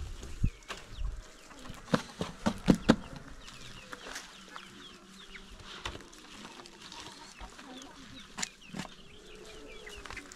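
Chickens clucking, with a few sharp knocks about two to three seconds in and another later on.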